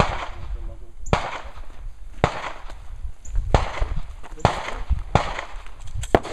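Gunshots from elsewhere on the range: about eight single sharp reports, roughly one a second and unevenly spaced, each followed by a short echo, with two close together near the end.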